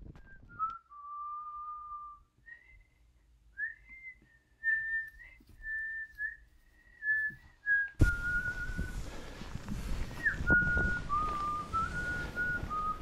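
A person whistling a slow tune in clear single notes, each held for up to about a second, stepping up and down. About eight seconds in, a steady rushing noise starts suddenly underneath, and the whistled tune carries on over it, settling lower near the end.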